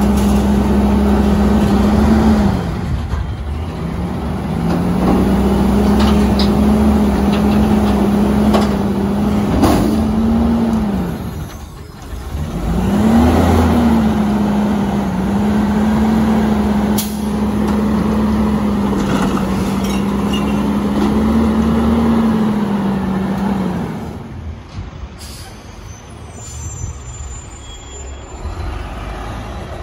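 Front-loader garbage truck's diesel engine held at raised revs to drive the hydraulics as the front arms lift over the cab, the engine note dipping and climbing again several times, with sharp air-brake hisses. The engine sound falls away about 24 seconds in.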